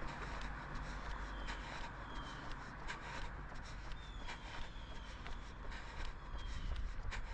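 A runner's footfalls on an asphalt road, a few steps a second, over a steady low outdoor rumble, with a few short falling chirps now and then.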